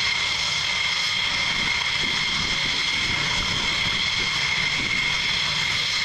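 Thunderbirds F-16 fighter jets' engines idling on the ground, a steady high-pitched jet whine.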